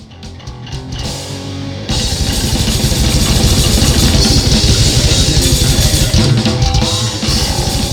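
Heavy metal intro music: about two seconds of sparse drum hits and guitar, then fast, dense drums and distorted guitars come in together at full loudness.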